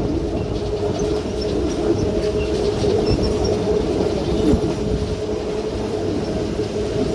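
Narrow-gauge Train Jaune (Yellow Train) running along the line, heard from aboard: a steady rumble of the carriage on the rails with a constant hum over it.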